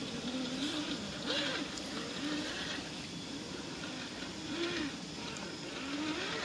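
Traxxas TRX-4 Defender RC crawler's electric motor and drivetrain whining, the pitch rising and falling again about once a second as the throttle is blipped while crawling.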